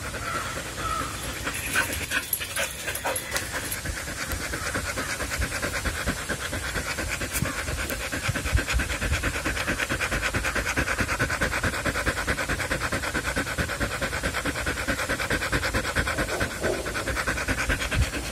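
A dog panting rapidly and steadily, with a few light clicks about two to three seconds in.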